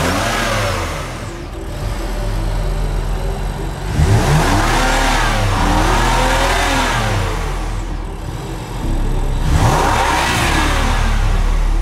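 BMW M4 F82's S55 twin-turbo straight-six revved in free air about four times, each rev climbing and falling back: once near the start, twice in quick succession a few seconds in, and once more near the end.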